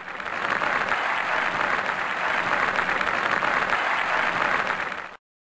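Audience applauding steadily, then cutting off abruptly about five seconds in.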